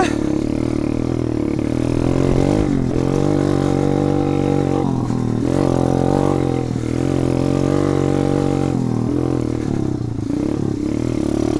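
Kayo pit bike's single-cylinder four-stroke engine running under way, its revs rising and falling several times as the throttle is worked. It is loud, through an exhaust that the rider takes for a straight-through muffler.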